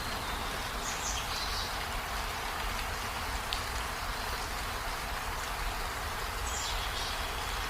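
Steady hiss of water, rain or running floodwater, over a low rumble, with a few short high chirps about a second in and again near the end.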